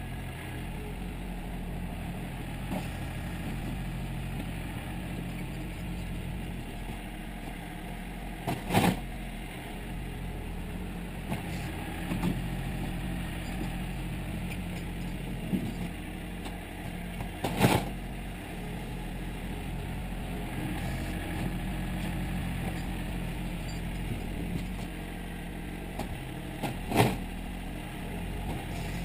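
John Deere 770 compact tractor's three-cylinder diesel running steadily as it plows snow with its loader bucket and rear blade. Three sharp knocks ring out about nine seconds apart.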